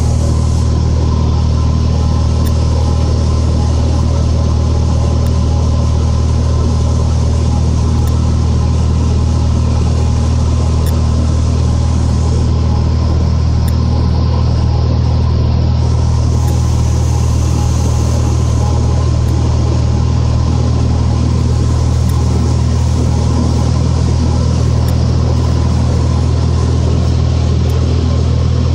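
Cessna 182's six-cylinder piston engine and propeller droning steadily, heard from inside the cabin.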